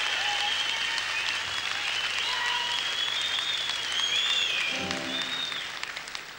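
Audience applauding and cheering with whistles at the end of a song, fading away near the end. A brief pitched sound stands out about five seconds in.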